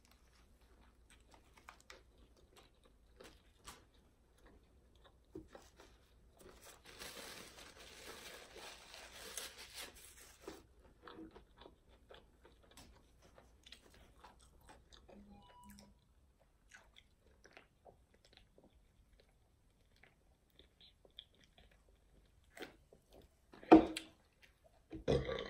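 Close-up chewing and crunching of a fried fish sandwich and potato chips, a run of small crunches with a louder, noisier stretch about seven to ten seconds in. Near the end comes a loud burp.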